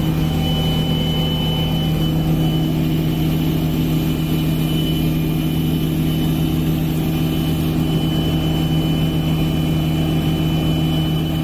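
Helicopter engine and rotor noise heard from inside the passenger cabin in flight: a loud, steady drone with a thin high whine above it.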